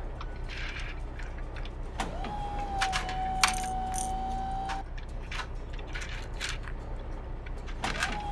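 Small plastic toy rocks clicking and clattering as they are scooped with a toy bulldozer blade and dropped into a die-cast toy pickup's metal bed, with scattered taps of the toys being handled. A steady tone sounds from about two to five seconds in and again near the end.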